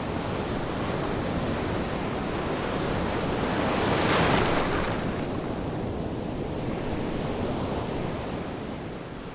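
Ocean waves breaking on a beach, a continuous wash of surf with one wave cresting loudest about four seconds in. The sound begins to fade out near the end.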